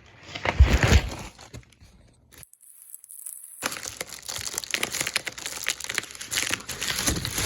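Packaging being handled and crinkled: dense crackling and rustling of plastic and cardboard. The sound drops out completely for about a second near the middle, then the crinkling resumes.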